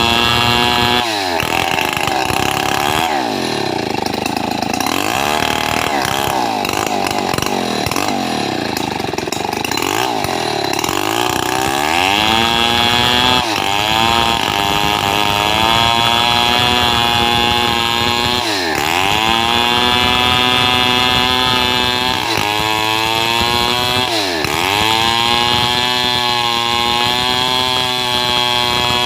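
Stihl 070 two-stroke chainsaw running at high revs while cutting gmelina wood, its engine pitch dropping sharply several times as the chain bogs under load and then climbing back.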